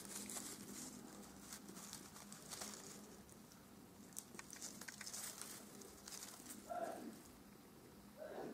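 Faint rustling and crinkling of paper streamers as a cat bats and bites at them, with scattered soft pats and clicks. Two short muffled sounds come near the end.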